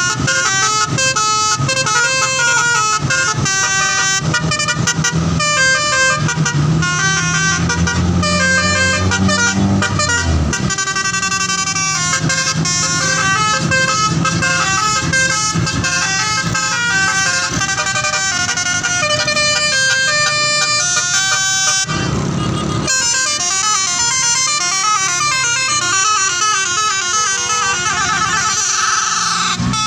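Bus telolet horns playing long runs of quick melodic notes that jump from pitch to pitch, with a low hum beneath for the first ten seconds. About two-thirds of the way through comes a short burst of noise lasting about a second, then the horns switch to fast warbling, alternating tones and rising glides.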